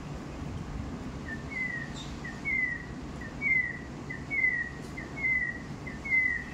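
A bird calling repeatedly: five evenly spaced calls, each a short high note followed by a longer falling whistle, over a steady low background rumble.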